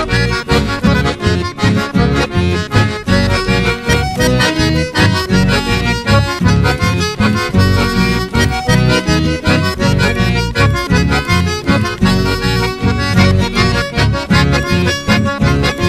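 Instrumental chamamé led by an accordion, playing a steady dance rhythm without singing.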